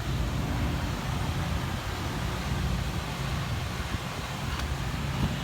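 Steady low rumbling background noise, with a faint click about four and a half seconds in.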